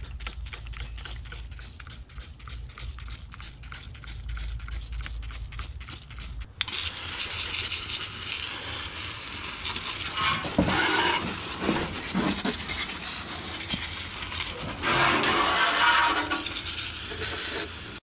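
A trigger sprayer pumped rapidly and evenly, several clicks a second, spraying degreaser onto a tractor's transmission housing. About six seconds in, a loud hiss of water from a hose spray nozzle starts, with uneven surges as the jet sweeps over the metal. It cuts off sharply just before the end.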